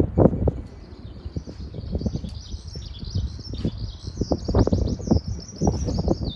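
A high, rapid chirping that starts about a second and a half in and keeps going, over irregular close rustles and knocks.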